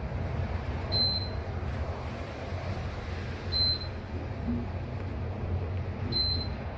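Otis Gen2 elevator car travelling at speed: a steady low rumble of the moving cab and its whirring machine, with three short high beeps about two and a half seconds apart.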